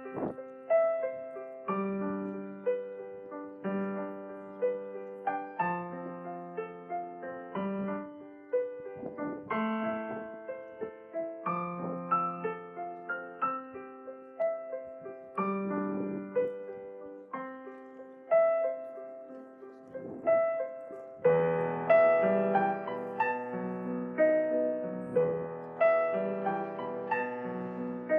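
Solo piano playing a slow, gentle piece in steady broken chords. About 21 seconds in it grows fuller and louder, with low bass notes added under the melody.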